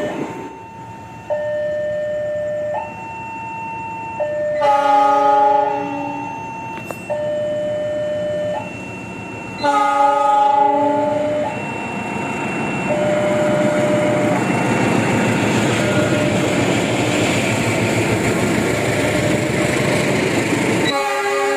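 Level-crossing warning alarm sounding, a tone that alternates between two pitches, while an approaching train's locomotive horn blows two blasts of about a second and a half each. The train then passes with a steady rumble and wheel clatter, and a third horn blast starts near the end. The horn warns road users because the crossing barrier has failed to close.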